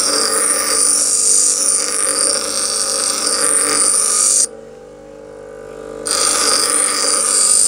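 Bench grinder running with a steel file pressed against the spinning wheel: a steady motor hum under a loud, high-pitched grinding hiss. The grinding stops for about a second and a half past the middle as the file is lifted off, leaving only the motor running, then starts again.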